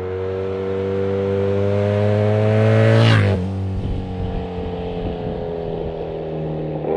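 Motorcycle approaching under acceleration, its engine note rising and getting louder, then passing close by about three seconds in with a rush of air and a sudden drop in pitch, and running on at a lower, quieter note as it moves away.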